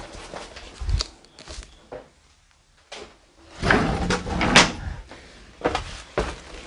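A wooden door being handled and opened: a click about a second in, then a loud scraping rattle a little past halfway, and a few knocks near the end.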